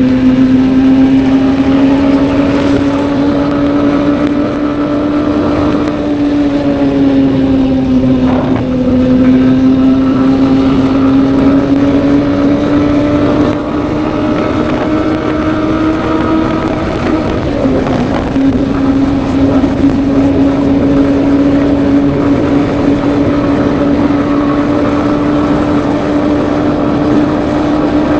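Honda motorcycle engine running steadily at cruising speed, heard from the rider's position. Its pitch drifts slowly up and down, dipping about a third of the way in and dropping quickly a little past halfway before settling again.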